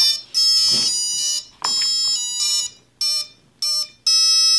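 Brushless ESCs giving their power-up beeps through 2212 1400kv brushless motors as each one is plugged into its battery: a run of short electronic beeps at several pitches, with a longer stretch of overlapping tones from about half a second to a second and a half in. The tones are the ESCs initializing and arming.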